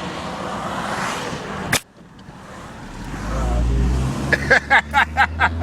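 Road and engine noise inside a moving car, broken by one sharp click a little under two seconds in. Near the end comes a quick run of about six short voice-like pulses.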